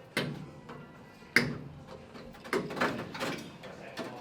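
A few knocks and clunks, the sharpest and loudest about a second and a half in, with a quicker run of them in the second half.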